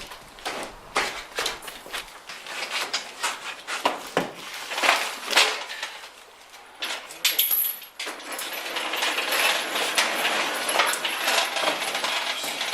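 Metal clinking and knocking as an engine hoist holding a Ford 302 small-block engine is let down and its chain and hardware handled. A steady hiss with scattered clicks starts about eight seconds in.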